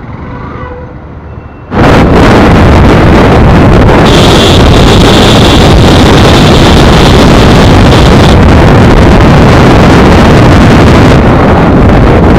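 Faint traffic at first, then from about two seconds in, loud steady wind noise buffeting the microphone of a camera on a motorcycle riding at highway speed, covering the bike's engine.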